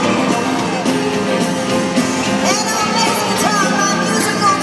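Live band playing an amplified rock song in an arena, heard from among the crowd. A singer's voice comes in about halfway through with held, gliding notes.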